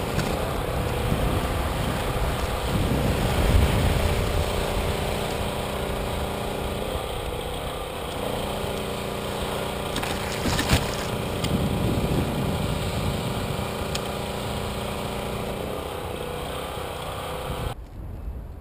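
Small electric motor of an RC Easystar foam plane running at a steady pitch, with a few clicks about ten seconds in. It cuts off suddenly near the end.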